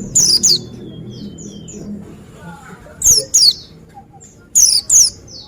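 White-eye (pleci) calling in pairs of quick, high, down-slurred notes. The pairs come near the start, about three seconds in and again about four and a half seconds in, with softer chirps between them.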